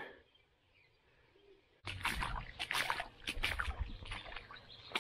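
Almost two seconds of near silence, then outdoor sound cuts in suddenly: a low rumble with a run of sharp clicks, knocks and rustles, and a faint high chirping near the end.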